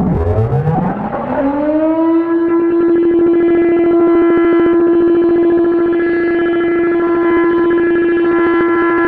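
Federal Sign & Signal Model 7 tornado siren winding up. It opens with several overlapping pitch glides, then one tone rises over about two seconds and holds at a steady pitch.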